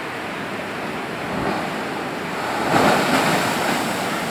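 Ocean surf breaking on a beach: a steady wash of waves that swells louder about three seconds in as a wave breaks.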